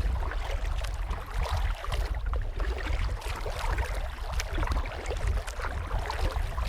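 Kayak paddling: the blades dipping and water splashing and dripping in many small irregular spatters, over a steady low rumble.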